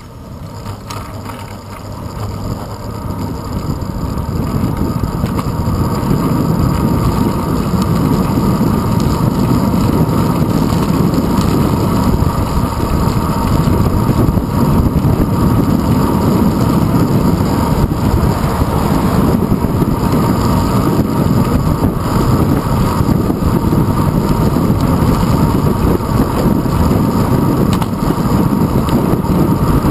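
Wind rushing over a handlebar-mounted GoPro Hero 2 as the bicycle picks up speed from a stop. It is a low, steady rumble that grows louder over the first several seconds, then holds steady at riding speed.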